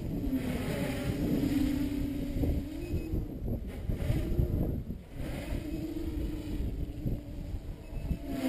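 Armattan 355 tricopter's 2600kv brushless motors and propellers whining in flight, the pitch wavering up and down as the throttle changes, with a brief drop about five seconds in before the whine comes back.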